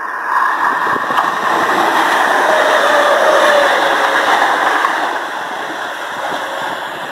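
Electric multiple-unit passenger train passing close by at speed: a rush of wheels on rail that builds quickly, peaks midway and then fades as it runs off, with a faint whine falling slightly in pitch as it goes by.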